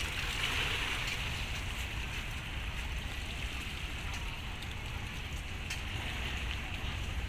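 Steady harbour water sloshing and lapping against the dock, under a low continuous rumble.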